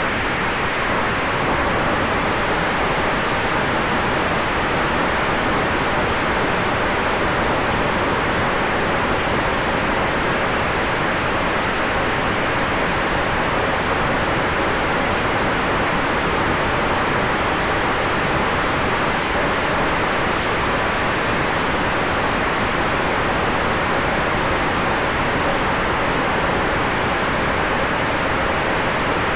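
Steady rush of wind and propeller noise on a microphone riding aboard an electric E-flite F4U Corsair RC plane in flight. A faint, steady tone from the spinning electric motor and prop sits under the rush.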